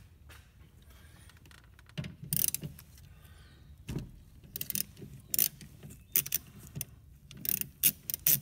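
Ratchet wrench with a 13 mm socket clicking in irregular bursts as it loosens the wiper arm's retaining nut, after a short metal clatter about two seconds in.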